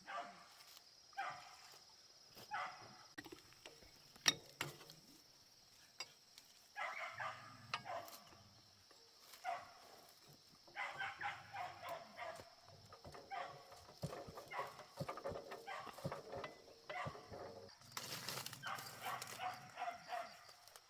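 A dog barking and yipping over and over in short calls, roughly one a second at first and more closely spaced in the second half, with one sharp knock about four seconds in.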